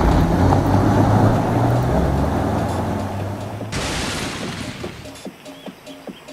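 Car engine rumbling as the car pulls away, fading out over about five seconds, with a brief hiss about four seconds in. Near the end a faint, evenly spaced ticking begins.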